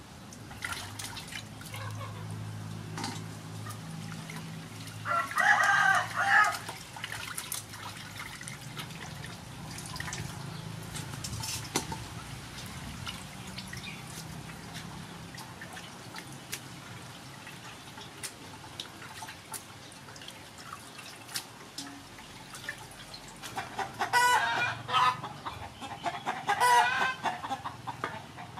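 Fish pieces being washed by hand in a metal basin of water, with small splashes and drips throughout. A rooster crows once about five seconds in, and chickens cluck repeatedly near the end.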